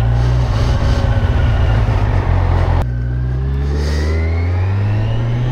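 Motorcycle engine pulling under acceleration while being ridden; about three seconds in the note drops abruptly at a gear change, then climbs steadily again as the bike accelerates in the next gear.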